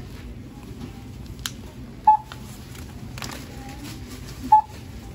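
Self-checkout kiosk's barcode scanner beeping twice, a short single-pitch beep about two seconds in and another near the end, each the confirmation of an item scanned, over a steady low background hum.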